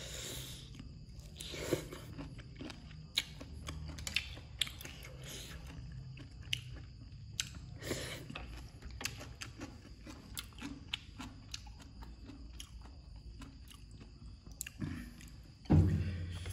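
Close-up chewing and crunching of papaya salad, with many short crisp crunches and clicks over a low steady hum. A loud thump comes near the end.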